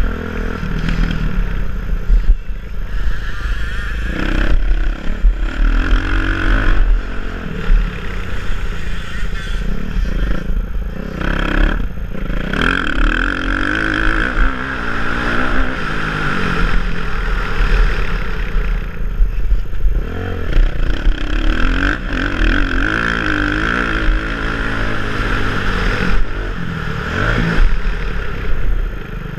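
Motocross bike engine revving hard as it is ridden around a race track, rising and falling in pitch through throttle changes and gear shifts, heard from a helmet-mounted camera. The engine is held at high revs on two longer stretches, around halfway and near three quarters of the way in, with brief drops in between.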